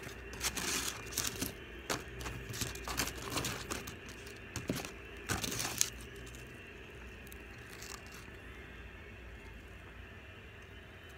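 Paper food wrapping crinkling and rustling as it is handled. There are sharp crinkles for about the first six seconds, then it goes quieter.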